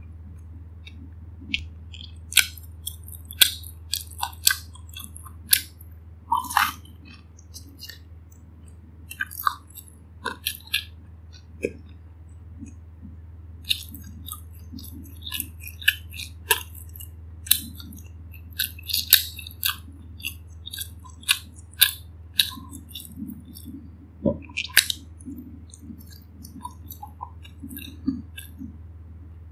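Close-up eating sounds: chewing and biting into pan-fried gyoza, with irregular sharp, crisp clicks and smacks from the mouth. A steady low hum runs underneath.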